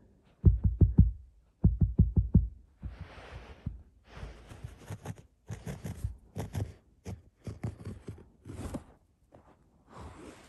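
A basenji's front paws digging and scratching at carpet: two quick runs of rapid thumps in the first couple of seconds, then lighter, scratchier strokes with pauses.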